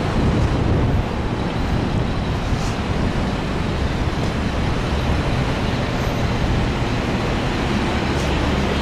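Steady city street traffic noise: cars and other vehicles passing on the road alongside.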